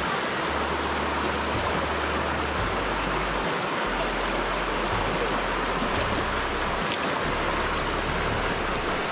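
Shallow river flowing steadily: a constant, even rushing of water.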